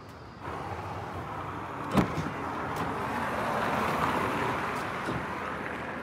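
A car passing on the street: its tyre and engine noise swells to a peak past the middle and then fades. A single sharp click about two seconds in.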